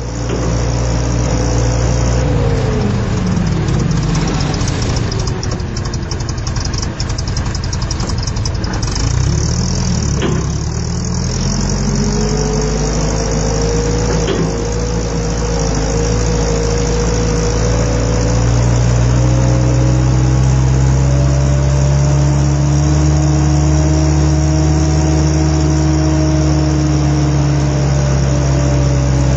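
Big forklift's engine running under the driver's control. Its speed drops about three seconds in, climbs again around ten to twelve seconds in, then holds steady at a higher speed.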